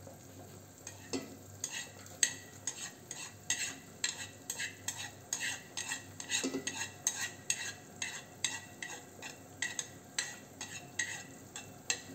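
Chopsticks scraping and tapping against a plate as chopped coriander and spring onion are pushed off it into a pot of squash soup. From about a second in there is a rapid, irregular run of light clicks and scrapes, a few a second.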